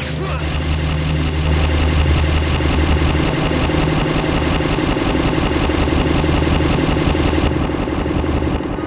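A vehicle engine running steadily: a loud low rumble with a hiss on top that drops away near the end.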